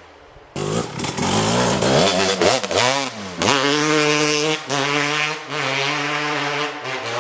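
Kawasaki KX250 single-cylinder two-stroke dirt bike engine with an FMF Gnarly expansion-chamber pipe, revving hard. It comes in about half a second in, drops and climbs in pitch once, then runs at high revs with a few brief dips in power, like throttle lifts between gears.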